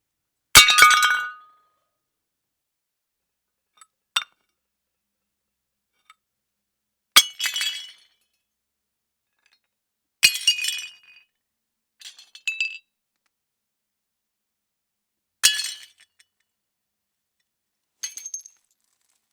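Plates smashing one at a time: about six sharp crashes spaced a few seconds apart, each followed by a second or so of shards clinking, with a couple of small clinks in between.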